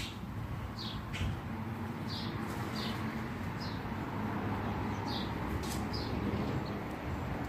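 A small bird chirping over and over, with short high chirps that slide down, about one a second. Beneath it runs a steady low hum.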